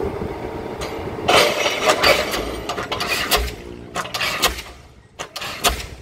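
Diesel pile hammer on a guided leader driving a precast concrete pile: heavy blows roughly once a second over the rig's running engine.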